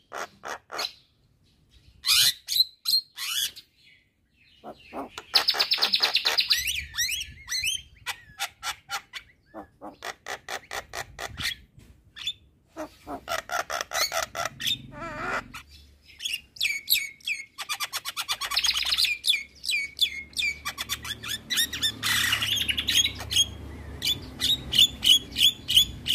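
Javan myna singing hard: bursts of fast chattering rattles mixed with loud whistled and gliding notes and harsh squawks, in phrases broken by short pauses.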